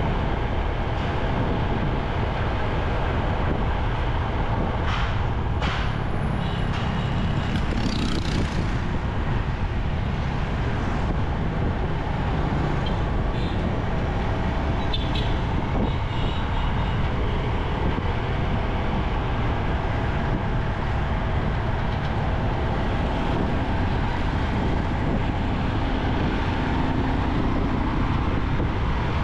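Motorcycle riding through city traffic: a steady low rumble of engine and road noise, with a few brief higher sounds from the traffic about a quarter of the way in.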